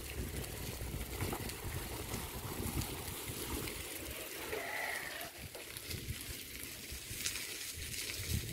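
Bicycle rolling along a paved lane, with low, uneven wind rumble on the microphone.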